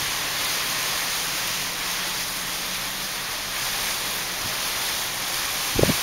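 Strong gusty wind blowing through palm fronds and trees: a steady rushing hiss, with a short low thump near the end.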